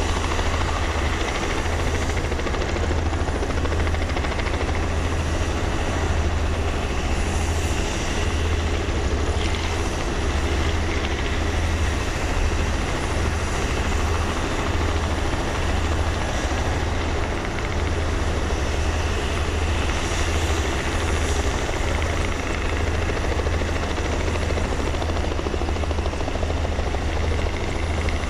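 Robinson R44 helicopter running steadily with its rotor turning, a low pulsing rotor thrum under a steady engine and rotor drone.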